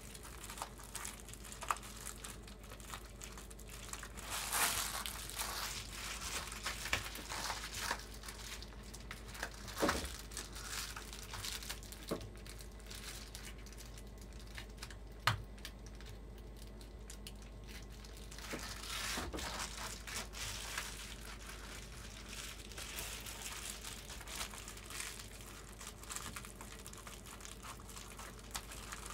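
Foil-faced bubble-wrap insulation (Reflectix) crinkling and rustling in irregular bursts as the sheet is handled and pressed into a window frame, with a few sharp taps.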